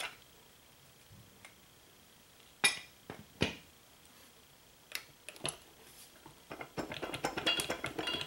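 Metal parts of a Sherman auxiliary transmission clunking as it is taken apart by hand: a few separate sharp knocks as the shifter top cover comes off, then a quick run of light metallic clinking over the last couple of seconds as the input shaft housing is worked on.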